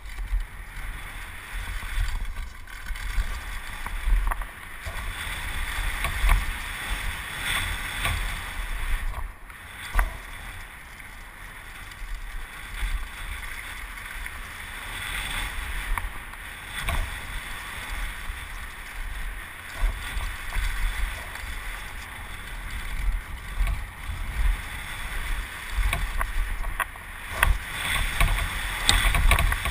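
Mountain bike rolling fast down a dirt downhill trail: tyre noise and wind rush on a helmet-mounted microphone, with knocks and rattles from the bike over bumps.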